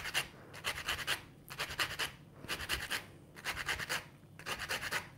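A lemon being zested on a fine rasp grater: the lemon is scraped along the blade in quick repeated strokes, about two a second, each a short rasp.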